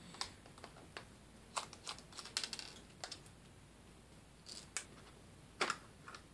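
Scattered light clicks and taps of a small screwdriver and plastic parts as a Canon Speedlite 540EZ flash's housing is unscrewed and taken apart, with a sharper click near the end.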